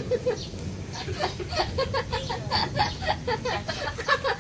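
A young child laughing in repeated fits of giggles, short bursts of 'ha-ha' following each other quickly.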